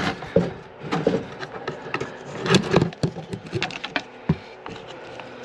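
Steel drain-auger cable being pushed by hand into a kitchen drain pipe, scraping and knocking irregularly against the pipe and its fitting as it is worked down the line.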